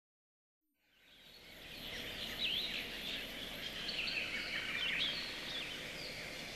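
Small birds chirping over a steady outdoor ambience, fading in from silence over the first second or two; the chirps are short, with quick up-and-down sweeps in pitch.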